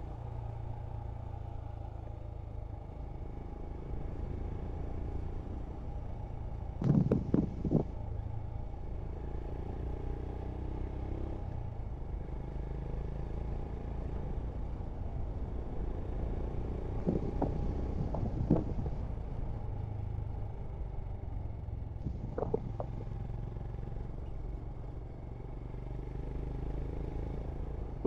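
Royal Enfield Scram 411's air-cooled single-cylinder engine running steadily at a cruise, with wind noise on the microphone. A few short louder sounds stand out, the loudest about seven seconds in and others near seventeen to nineteen and twenty-two seconds.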